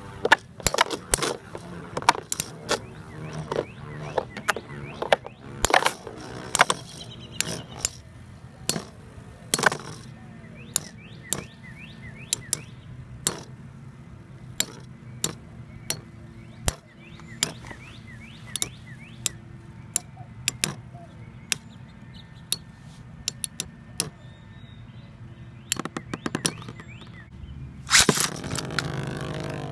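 Two metal Beyblades, Galaxy Pegasus W105R2F and Sol Blaze V145AS, spinning together in a plastic BB-10 stadium with a steady low whir. They strike each other with sharp metal clicks and clacks, many at first and fewer later on, and there is a louder, longer rush of noise near the end.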